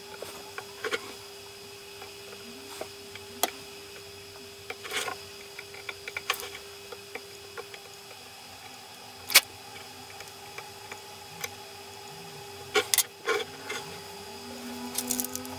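Small scattered clicks and taps of metal tweezers against a laptop memory module's circuit board as it is handled, with a few louder clicks near the end as the board is clamped in a helping-hands alligator clip, over a steady low hum.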